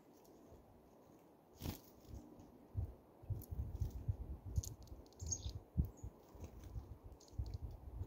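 Handling noise as a black-capped chickadee lands on a hand holding sunflower seeds and picks at them: a sharp click, then irregular low thumps and rustles close to the microphone from about three seconds in. A few faint, short, high chirps are mixed in.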